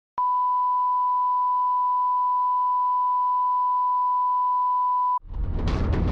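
Steady single-pitch line-up test tone that plays with colour bars, starting just after the beginning and cutting off abruptly after about five seconds. Then the station ident's music starts, with heavy low booms.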